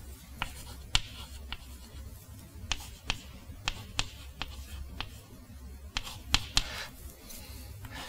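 Chalk writing on a blackboard: a string of sharp, irregular taps with light scratching as letters are written, over a faint steady low hum.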